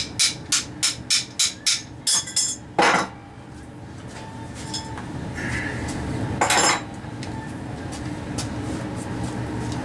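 Metal air-hose fittings being handled: a quick run of about ten sharp metallic clicks in the first two and a half seconds, then two louder, longer bursts about three and six and a half seconds in, over a steady low hum.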